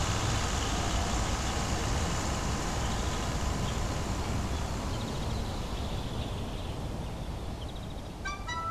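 Farm tractor engine running with a steady rumble, slowly fading away. Woodwind music starts just before the end.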